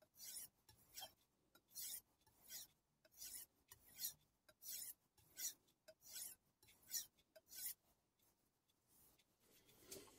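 A Kai Shun chef knife's edge being stroked back and forth on a wet King 6000 finishing water stone: about eleven soft, even rasping strokes, a little over one a second, stopping about eight seconds in. This is the fine polishing stage of the sharpening.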